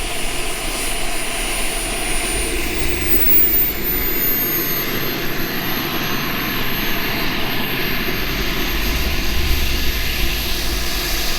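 Miniature turbine engine of a Starfire RC jet running in flight: a loud jet rush with a thin high whine that drops in pitch a few seconds in, and a second, higher whine that comes in and holds steady.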